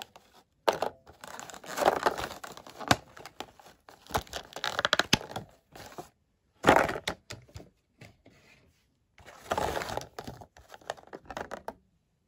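Clear plastic packaging insert of a Funko Pop figure crinkling and crackling as it is handled, in irregular bursts with sharp clicks and a short lull about two thirds of the way through.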